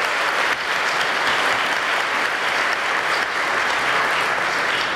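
A seated audience applauding, many people clapping in a steady, dense patter.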